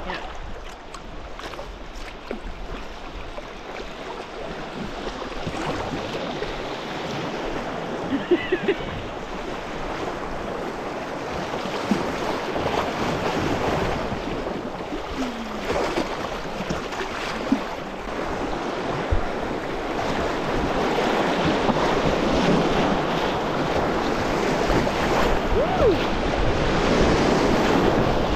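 Rushing water of river rapids around a kayak, growing steadily louder as the boat runs into whitewater, with a few short sharp knocks along the way.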